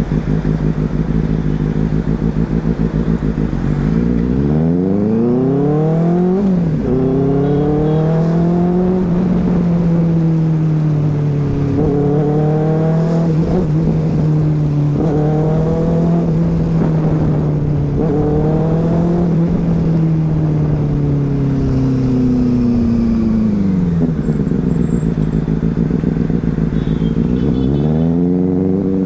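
Sport motorcycle engine heard from the rider's seat, pulling away from low revs and climbing in pitch through several gear changes, each rise dropping back at the shift, then easing off and slowing about three quarters of the way through before picking up again near the end.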